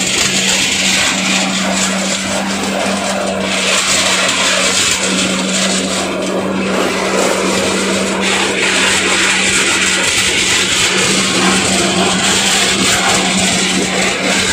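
Areca-nut husking machine running with its small diesel engine, a steady hum under a dense, even clatter of dry nuts and husk being beaten and thrown out of the drum.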